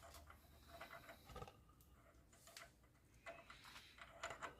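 Near silence with a few faint, scattered metallic clicks and taps as a nut is started on the axle threads.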